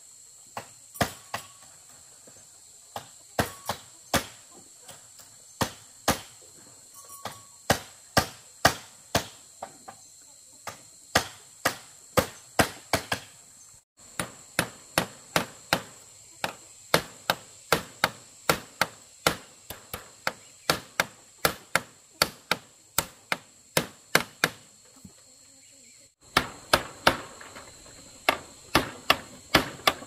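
Repeated sharp blows of a hand tool on wood, about two a second with short pauses, as in hammering or chopping timber.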